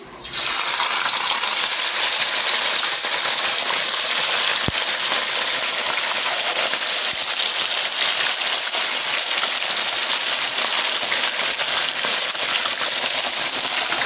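Whole mojarra fish slid into hot oil, setting off a sizzle that starts suddenly and carries on loud and steady as they deep-fry.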